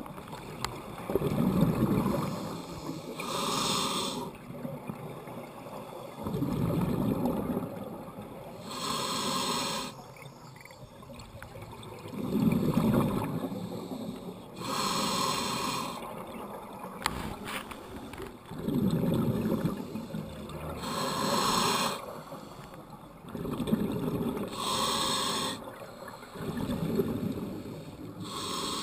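Scuba diver breathing through a regulator: about six breaths, each a short hissing inhalation followed by a longer low burble of exhaled bubbles, repeating every five or six seconds.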